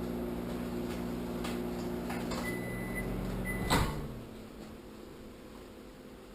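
Microwave oven running with a steady hum, a short high beep about two and a half seconds in, then a clunk of the door opening near four seconds in, at which the hum stops.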